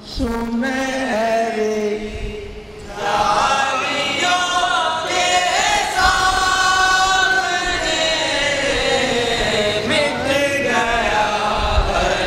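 Male voices singing a naat unaccompanied, in long held, slowly bending melodic lines, with a short break about two seconds in.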